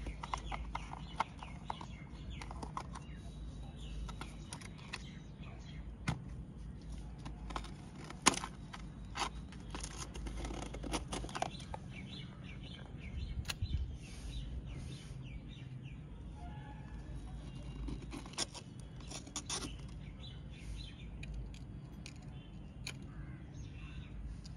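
Scattered light clicks and taps from handling a plastic chemical bottle and its screw cap, and from tipping and tapping potassium nitrate powder into a small steel cup on a pocket digital scale.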